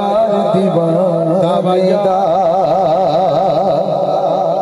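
A male singer performing a Punjabi devotional kalam (naat), singing a drawn-out melodic line. About two seconds in he settles on one long held note with a wide, even vibrato.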